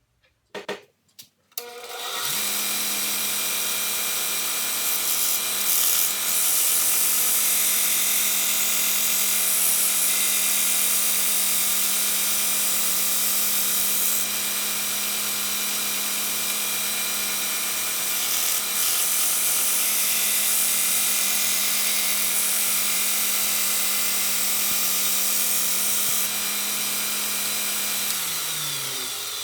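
A 2x42 belt grinder switched on after a few clicks, its motor coming up to speed and then running steadily with a loud belt hiss, winding down near the end.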